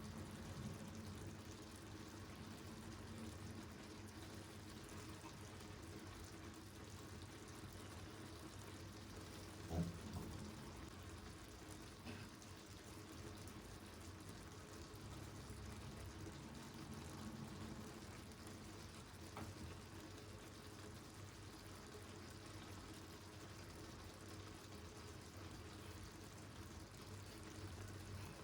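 Faint steady kitchen background hiss and hum, with one short knock about ten seconds in and a couple of lighter ticks later.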